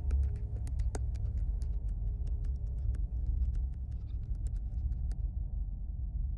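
A steady low rumbling drone, with sharp irregular clicks and crackles scattered over it that stop about five seconds in.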